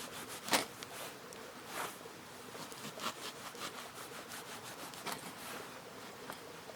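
Irregular crunching and scuffing footsteps on the ground, the sharpest about half a second in, over a faint steady hiss.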